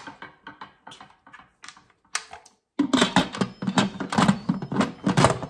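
Plastic lid of an electric pressure cooker being set on the pot and twisted into place: a few light clicks, then a dense run of rattling clicks and scrapes from about halfway through.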